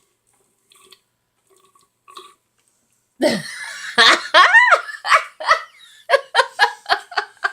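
A person belches loudly about three seconds in, after gulping chocolate milk, then breaks into laughter in quick short bursts, about three a second.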